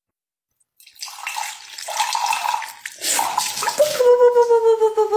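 Water poured from a glass over a person's head, splashing through the hair, starting about a second in. From about four seconds a steady sustained tone slides slowly down in pitch over the splashing.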